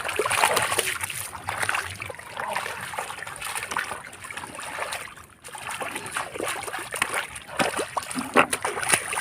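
Shallow water splashing and sloshing in uneven bursts, as hands and bodies work through it while feeling for catfish.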